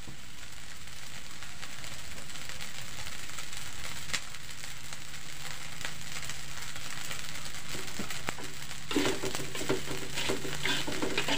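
Fried rice sizzling steadily in a large aluminium wok. From about nine seconds in, a metal spatula scrapes and tosses the rice against the pan in quick, irregular strokes.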